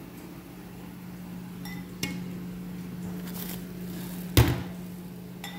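Dishes clinking lightly and one loud knock about four seconds in, as dishes are handled on a metal serving tray, over a steady low hum.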